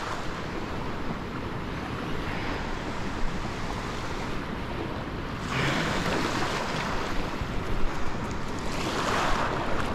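Shallow seawater sloshing and lapping around a wading person right at the microphone, with wind buffeting it. The water swells louder about halfway through and again near the end.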